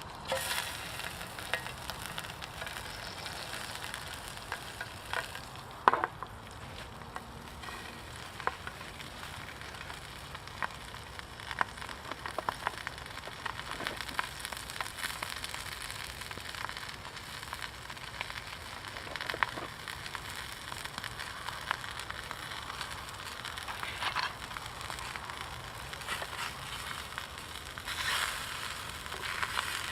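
An egg frying in oil in a pan over a wood fire: a steady sizzle with scattered pops and crackles, one louder pop about six seconds in.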